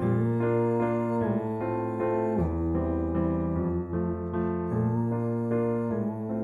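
Background music: an instrumental passage of a slow song played on keyboard, with chords over a held bass line, between sung lines.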